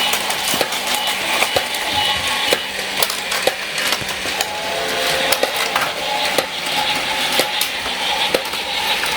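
Battery-powered Plarail toy train running on plastic track: a steady motor whir and rattle with light clicks recurring about every half second as the wheels pass the track joints.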